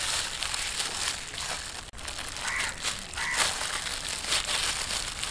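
Disposable plastic glove crinkling in rapid, irregular crackles as a hand rubs green masala paste into the skin of a large fish.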